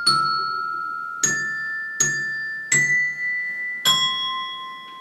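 Tuned touch bells struck one at a time, five notes at different pitches, each left ringing; the last note is the lowest. It is a short melody played for the listeners to memorise and repeat.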